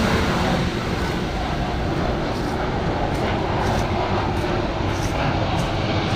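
Train passing on the line: a steady rumble and rushing noise, with faint light ticks above it.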